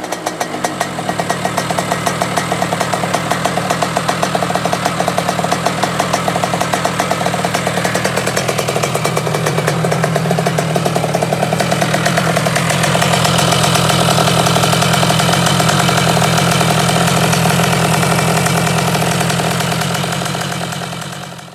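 Small motorcycle engine running with a fast, even pulse, getting a little louder about halfway through and fading out at the end.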